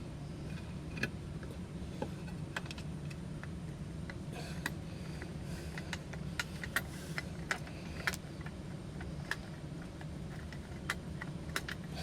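Light metallic clicks and clinks, scattered irregularly, from tools and parts being handled while working on a gas water heater. A steady low hum runs underneath.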